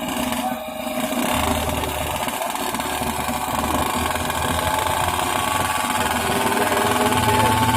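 Two-stroke underbone motorcycle engine running with a steady buzz, its pitch creeping up slightly near the end.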